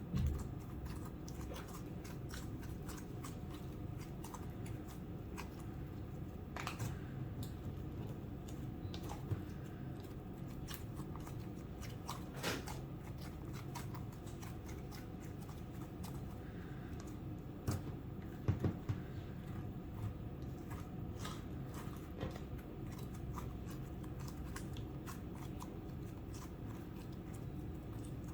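Slime being squished and kneaded by hand, with scattered sticky clicks and crackles over a steady low background hum.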